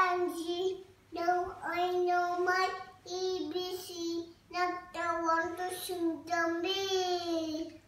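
A child singing in long, held notes, in several phrases broken by short pauses.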